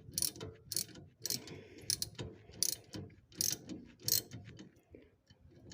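Ratchet wrench with a 13 mm socket clicking through repeated short strokes, about seven of them, as it loosens a bolt on a car's stabilizer bar bushing clamp; the clicking stops about four seconds in.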